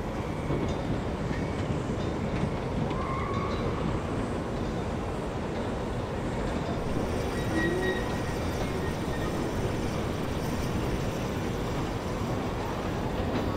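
1929 Sentinel DG8 steam waggon running on the move, heard from its cab beside the vertical boiler: a steady, even mechanical din with no clear beat.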